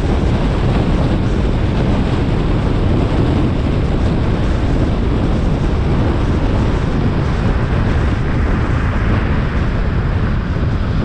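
Steady wind and road noise from a moving car, with heavy wind buffeting on the microphone.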